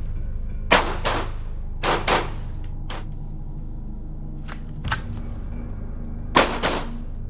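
Handgun shots: several sharp reports with short echoing tails, the loudest coming singly and in quick pairs, with a few fainter shots between. A low music bed runs underneath.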